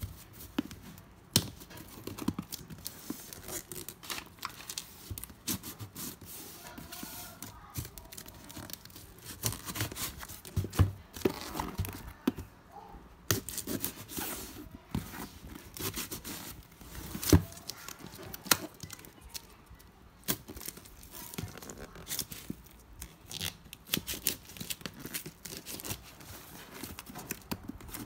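Packing tape on a cardboard box being slit with a kitchen knife and torn off by hand, in many short irregular scrapes, rips and rustles, with one sharper knock on the box about two-thirds through.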